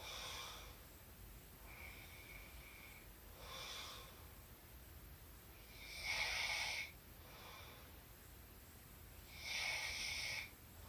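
Woman snoring in her sleep: raspy, hissing breaths repeating every few seconds, the loudest about six seconds in and again near the end.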